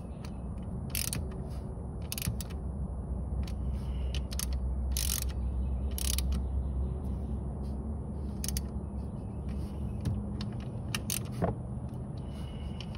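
Hand ratchet with socket clicking in short irregular runs as the ignition coil's mounting bolt on a 5.3 L V8 is run back down and snugged, over a low steady rumble that swells around four to seven seconds in.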